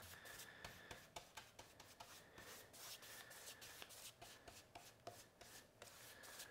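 Faint, quick repeated swishes of a paintbrush spreading thick blackboard paint across a board.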